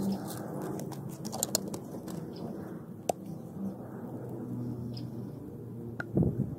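Food sizzling on a hot flat-top griddle, with scattered crackles. A pigeon coos in the background, and there is a loud knock about six seconds in.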